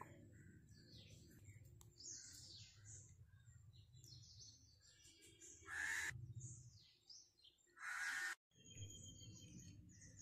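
Outdoor birds calling intermittently, with two louder calls about six and eight seconds in.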